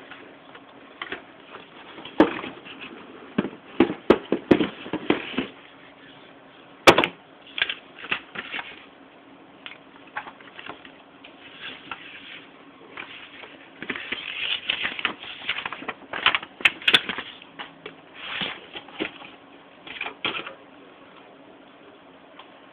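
Tablet packaging being handled: a cardboard box, its lid and a plastic tray tapped, knocked and rustled in irregular bunches of clicks with short pauses between.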